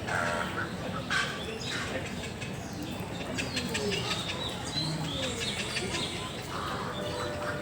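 Birds chirping and calling in short, quick notes over a busy background.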